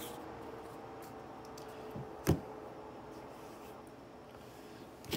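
Quiet room with a faint steady hum and one sharp knock a little over two seconds in.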